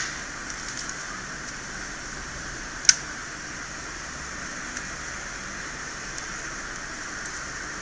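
Steady hiss of a running fan, with one sharp click nearly three seconds in and a few faint ticks.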